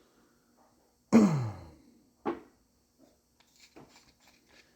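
A man's loud sigh with a falling voice about a second in, then a shorter breath a second later and faint handling clicks.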